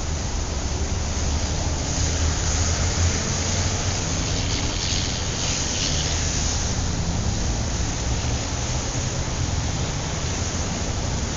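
Busy city street traffic at a crossing: a steady rumble of passing cars, trucks and motorbikes with tyre and engine noise, and wind on the microphone. A louder hissing pass swells a few seconds in.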